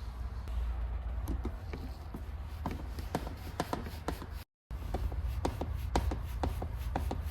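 Irregular small clicks and taps of hands working on plastic car interior trim during a door-handle replacement, over a steady low hum.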